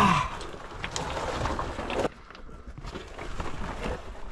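Scraping, rustling and small knocks of a person crawling and squeezing through a tight rocky passage. It quiets for about a second midway, then the rustling picks up again.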